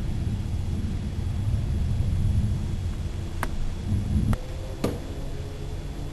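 Rolling thunder rumbling low and dying away about four seconds in, with a few sharp clicks near the end.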